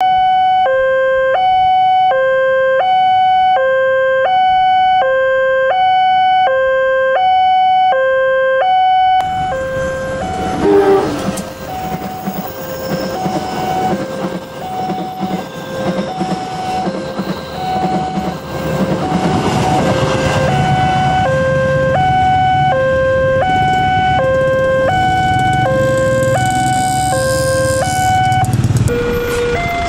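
Indonesian level-crossing electronic warning alarm from the loudspeaker on the crossing signal: two tones alternating high and low, each held for about two-thirds of a second. From about 9 s a passenger train passes over the crossing and its rumble half-covers the alarm for several seconds. A lower-pitched alarm of the same kind takes over near the end.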